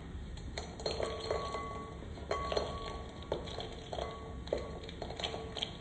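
Dry-roasted almonds, cashews, pistachios and melon seeds tipped from a non-stick pan into a glass bowl: a scatter of small clicks and clinks on the glass, some ringing briefly.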